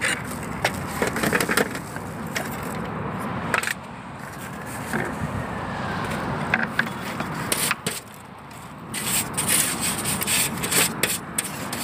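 Metal hive tool scraping and knocking against the wooden frame and wire mesh of a beehive's bottom board, then a stiff plastic brush scrubbing the mesh, with a hissy, scratchy sound near the end.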